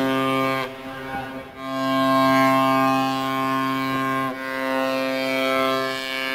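Background music: slow, long held notes on bowed strings, with the notes changing a little after half a second in, again around a second and a half, and once more past four seconds.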